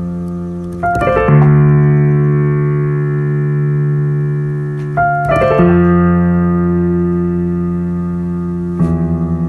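Slow, held piano chords, each new one quickly rolled from low to high: about a second in, around five seconds in, and again near the end, where the chord wavers in a quick, even pulse.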